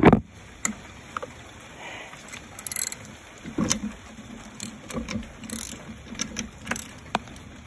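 Irregular metallic clicks and clanks of a wrench working a floor jack that will not turn or rise: the jack is stuck in place.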